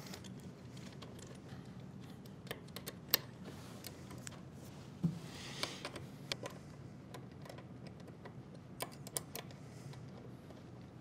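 Scattered light metal clicks and taps of cap screws being set into the bolt holes of a linear-guide table and snugged with Allen keys, irregular, with one sharper click about three seconds in.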